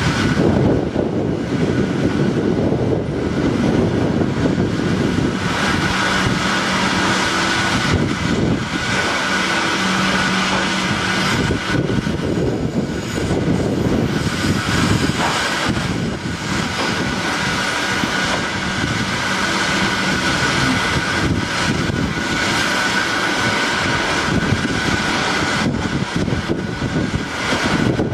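South Western Railway electric multiple unit moving slowly under the footbridge: a steady electric hum with a high whine over continuous wheel rumble.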